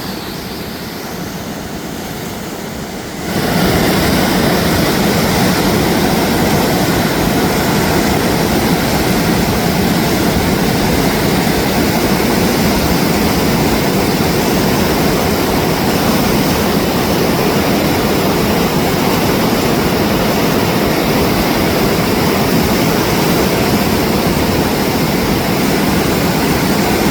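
Rushing river water, a loud, steady rush of noise that grows louder about three seconds in and then holds steady.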